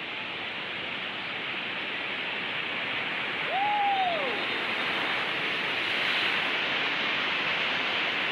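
Steady rushing noise of large sea waves surging toward the shore, growing slightly louder. About halfway through, a single short tone rises and then falls.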